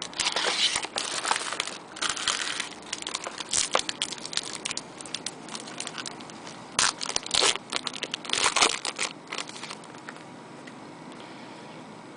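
Wrapper of a trading-card pack crinkling and tearing as it is opened, in several noisy bursts, dying away near the end.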